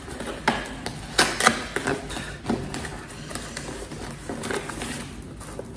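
Cardboard and paper parcel packaging being handled and opened: irregular crackles, rustles and light taps.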